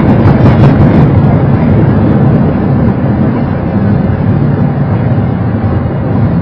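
Loud cockpit rumble of a Boeing 737 rolling out on the runway just after touchdown, easing a little after about three seconds as the aircraft slows.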